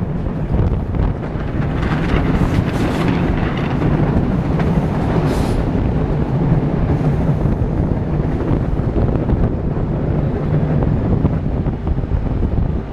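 X10 electric commuter train running along the track, heard from inside the carriage: a steady rumble of wheels on rail with a low hum and wind rush. Brief louder hissing rushes come about two seconds in and again about five seconds in.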